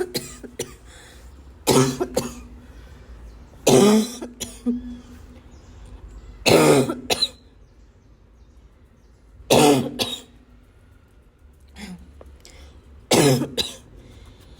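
A person's harsh, barking, wheezing cough: five coughing fits about three seconds apart, each a loud bark followed quickly by a shorter second cough.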